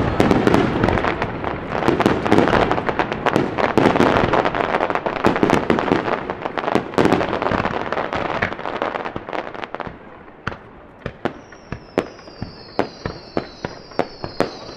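Rapid-fire digital starmine fireworks: a dense barrage of overlapping bangs and crackling for about the first ten seconds, then it thins out to separate sharp bangs. Several high whistles gliding down in pitch come in near the end.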